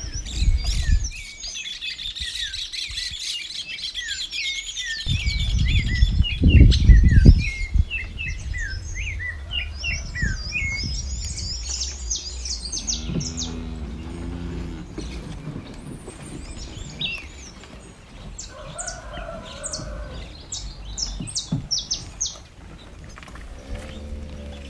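Many small birds chirping and twittering in dense, overlapping calls, with a loud low rumble on the microphone for a few seconds about five seconds in.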